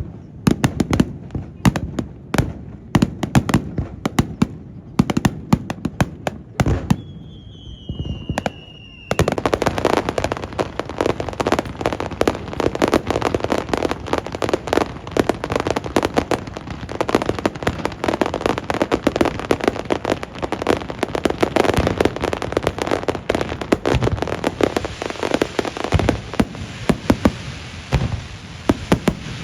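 Aerial fireworks going off: separate bursts with a low rumble, a whistle falling in pitch around eight seconds in, then an abrupt change to a dense, continuous crackling barrage of rapid bangs.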